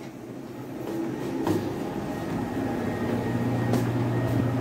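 Steady low machinery hum that gets louder about a second and a half in and then holds, with a faint knock or two.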